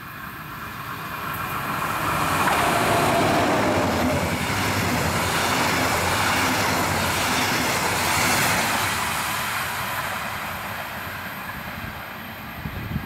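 Electric-hauled train of double-deck regional coaches passing at speed. The sound builds over the first two seconds or so, and a whine drops in pitch as the locomotive goes by. Steady wheel-on-rail rolling noise from the coaches follows, easing off toward the end as the control car passes.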